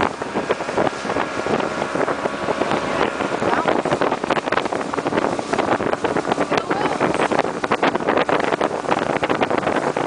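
Wind buffeting the microphone in a crackly rush, over a boat's motor running steadily, its drone clearest in the first few seconds.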